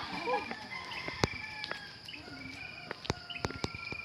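Insects buzzing steadily, with short trilled calls repeating every second or so, and several sharp clicks or taps, the loudest about a second in.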